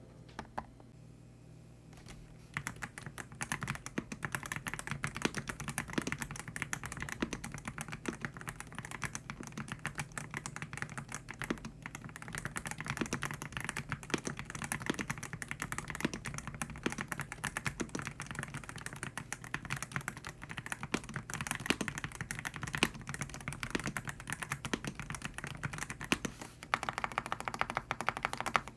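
Typing on a YUNZII YZ98 mechanical keyboard fitted with YUNZII Milk switches: rapid, continuous keystrokes starting about two and a half seconds in.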